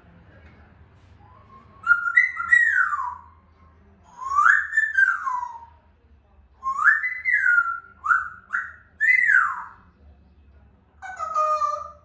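African grey parrot whistling: a series of about six whistles, each gliding up and then falling away, then a lower, flatter call near the end.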